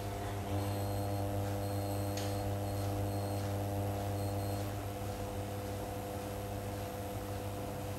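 Steady electrical hum of a glass-top electric hob heating a steel pot of water back toward the boil, with faint, scattered high ticks in the first five seconds.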